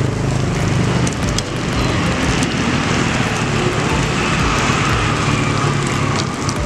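Flat rice noodles sizzling in a wok over a gas flame: a steady, even hiss with a low rumble underneath.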